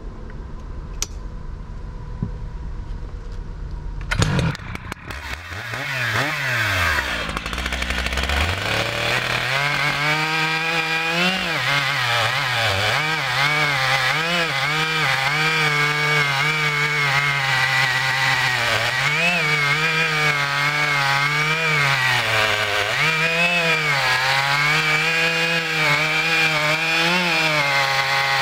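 Stihl MS 881 Magnum chainsaw with a .404 chain, a new saw being broken in, cutting rounds off a big oak log at full throttle, its engine pitch dipping and recovering as the chain bites into the wood. For the first several seconds it runs quieter, with a sharp knock about four seconds in, before the saw comes up to speed.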